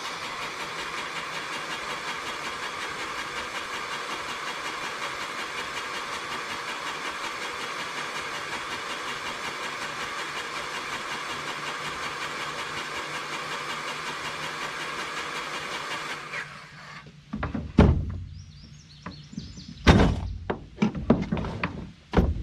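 Battery-powered grease gun running steadily for about sixteen seconds, pumping grease through a grease fitting to flush metal shavings out of it. It stops, and a few sharp knocks and clatter follow as tools are handled.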